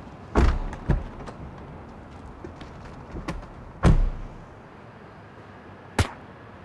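Car doors being shut in a concrete parking garage: a string of heavy thuds, each trailing off in echo. The loudest come about half a second in and about four seconds in, with lighter knocks between and near the end.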